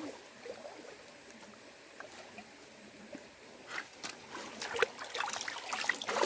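Shallow stream trickling over rocks, with a few light clicks and knocks from about four seconds in as hands work the fish and cast net on the stones, and the water louder near the end as hands reach into it.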